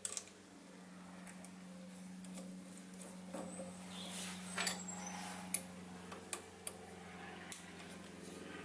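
Scattered light metallic clicks and ticks as the compound slide feed handle of a Sieg SC3 mini lathe is turned by hand to check the gib adjustment, over a steady low hum.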